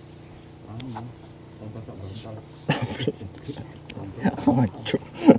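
Steady high-pitched chorus of insects. A few short knocks and clicks come in the second half, the loudest near the end.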